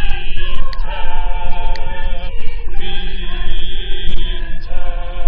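A choir singing a song's second verse in long, held notes, with the chord changing every second or two.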